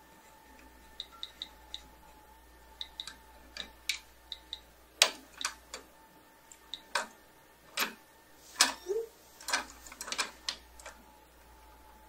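Irregular small clicks and taps of hands handling small parts and tools on a Mac Pro processor tray. They are light and sparse at first, then louder and closer together from about five seconds in.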